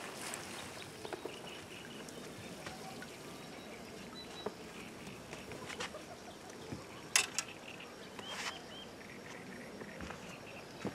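Lakeside outdoor background with small birds chirping in short repeated calls, scattered light clicks and handling noises, and one sharp knock about seven seconds in.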